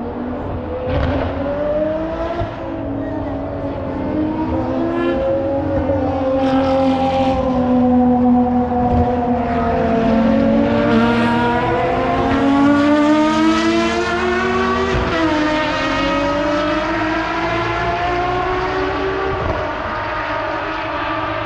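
Racing car engines at high revs, their pitch rising and falling repeatedly as they accelerate and lift off. More than one engine is heard at once, loudest around the middle.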